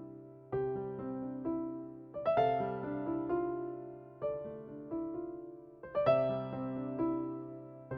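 Background music: a gentle piano melody over sustained chords, with notes struck and left to ring.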